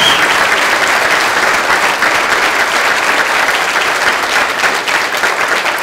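Audience applauding: many people clapping together in a dense patter that eases slightly near the end.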